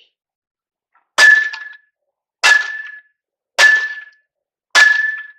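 A baseball bat striking a vacuum cleaner four times in a steady rhythm, about once every second and a quarter. Each hit is a sharp clang with a ringing tone that dies away within half a second.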